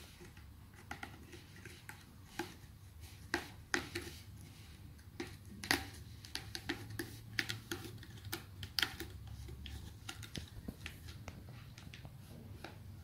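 Cat clawing and batting at a sisal-rope scratching post: an irregular run of scratchy clicks and taps as its claws catch the rope, busiest in the middle.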